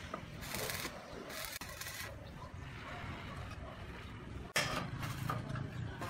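A roof tile set down onto a steel roofing batten, one sharp clack about four and a half seconds in, over a low rumble of street traffic that grows louder after the clack.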